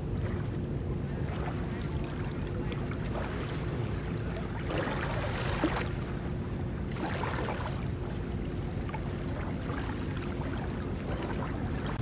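Small waves washing up onto a sandy beach, two louder washes about five and seven seconds in, over a steady low rumble with a faint hum.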